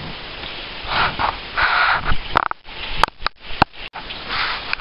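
Handling noise of a blue poly tarp boat cover being pulled back. There is rustling at first, then several sharp clicks and knocks about halfway through.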